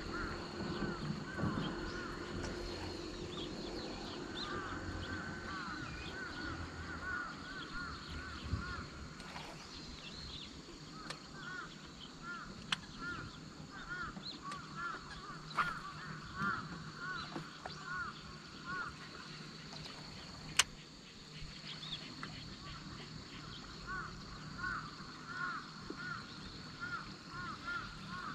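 Faint bird calls: runs of short, repeated calls, heard again and again, with one sharp click about two-thirds of the way through.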